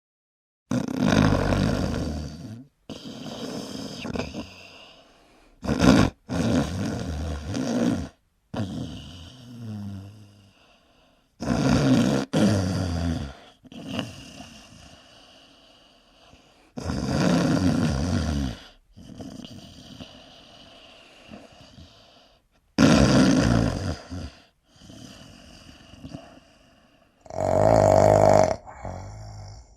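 A person snoring: about six loud, rattling snores roughly every five seconds, alternating with quieter breaths, several of them cutting off sharply.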